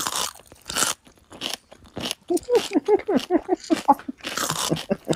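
Crisp potato chips crunching in a run of short crackles, with a brief bout of a woman's giggling laughter in the middle.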